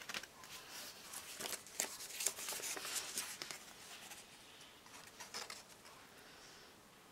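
Crinkling and light clicking of plastic and cardboard stamp-and-die packaging being handled by hand, busiest in the first few seconds and fading out after about five seconds.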